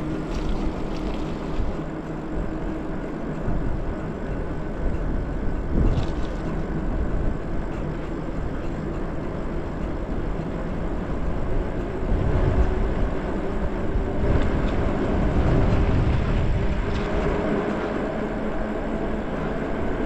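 Riding noise from an electric bike: wind buffeting the microphone with a gusty rumble, tyres rolling on pavement, and a faint steady whine from the e-bike's motor that climbs a little in pitch past the middle.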